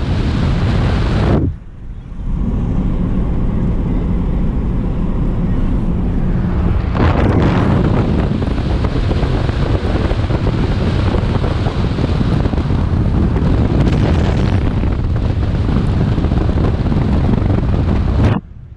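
Heavy wind and rain noise buffeting a waterproof GoPro's microphone, mixed with the road noise of a moving car in a downpour. It is a loud, rumbling roar that drops out briefly about a second and a half in and again near the end.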